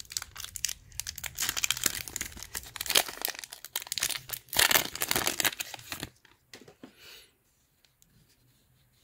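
Foil trading-card pack wrapper crinkling and tearing as it is ripped open by hand. The crackling is dense for about six seconds, then stops, leaving a few faint rustles of the cards.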